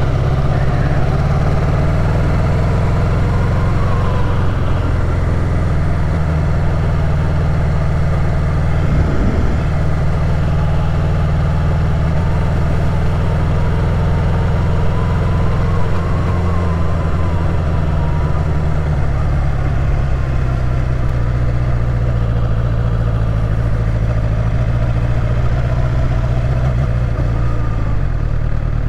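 Sport motorcycle's engine running steadily at low, even cruising speed, heard from the rider's seat.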